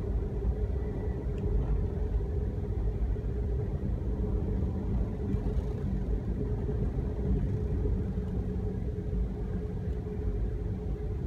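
Passenger train running along the tracks, heard from inside the car: a steady low rumble with a constant hum.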